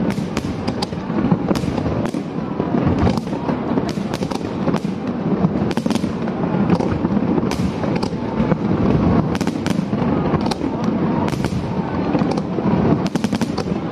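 Aerial fireworks display with shells bursting in quick succession. Sharp bangs and crackles come several times a second over a steady low din.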